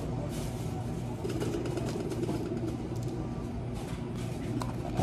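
Steady low hum of café equipment with light clinks and scrapes of a spoon at a plastic frappe cup as cookie crumbs are topped on; a sharp knock at the very end.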